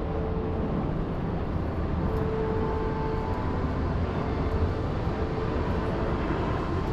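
Steady low outdoor rumble, with a faint hum that comes and goes.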